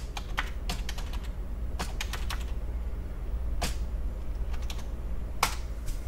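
Computer keyboard being typed on: scattered single key clicks, with one stronger keystroke near the end. A steady low hum runs underneath.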